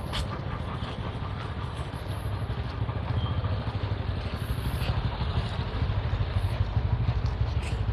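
Outdoor traffic noise: a steady low rumble of passing vehicles.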